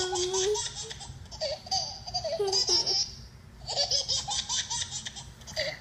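Baby laughing in bursts of quick, breathy pulses, with a short pause about three seconds in.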